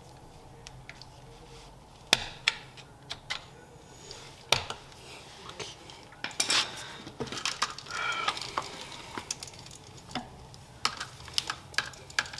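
Hands working the lead wires of an electric motor: sharp clicks and clinks of wire ends and small metal parts, with rustling of the wires between them, starting about two seconds in. A brief squeak sounds near two-thirds of the way through.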